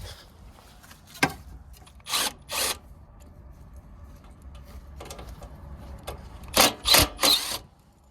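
Tool work on a mini-split outdoor unit during a fan motor change: a low steady hum with short, noisy bursts. There is a click, then two bursts about two seconds in, and three louder bursts close together near the end.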